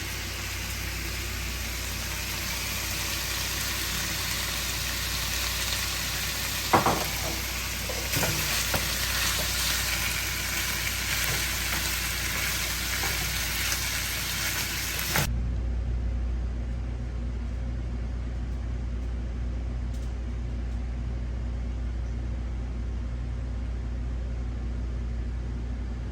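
Food sizzling as it fries in oil in a pan, with a couple of utensil knocks against the pan about seven and eight seconds in. About halfway through the sizzle cuts off suddenly, leaving only a steady low hum.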